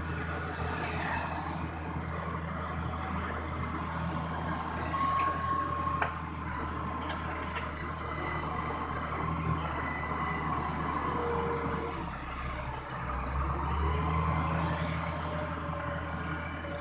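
Heavy trucks and road-repair machinery running, a steady low engine drone with higher tones that come and go.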